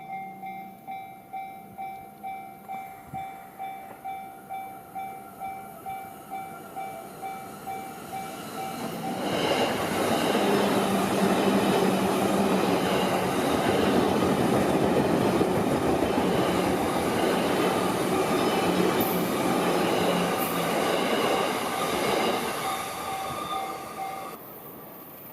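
Japanese level-crossing warning bell ringing about twice a second, then a train passing over the crossing for about fifteen seconds, loud enough to drown the bell. The bell is heard again briefly as the train clears and stops near the end.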